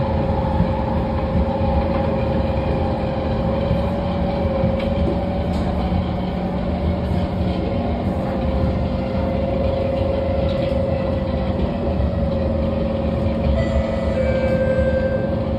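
Singapore MRT train running at speed on an elevated track, heard from inside the carriage: a steady rumble of wheels and running gear with a constant mid-pitched whine.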